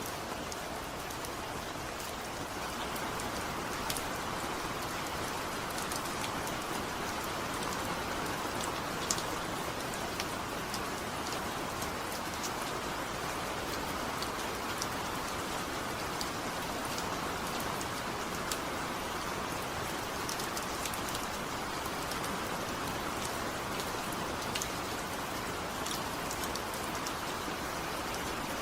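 Heavy, steady rain falling without thunder, a dense even hiss with scattered sharp drop ticks on a surface.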